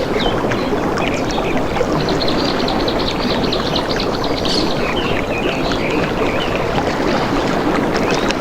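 Steady running water with birds chirping over it; about two seconds in, one bird gives a quick trill of rapidly repeated notes lasting just over a second.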